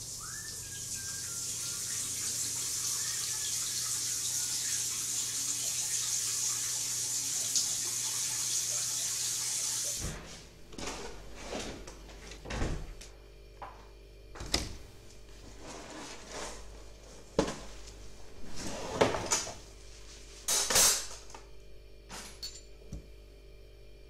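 Water running steadily from a bathroom sink tap, stopping abruptly about ten seconds in. Then a string of separate knocks and clatters of kitchen things being handled, the loudest near the end.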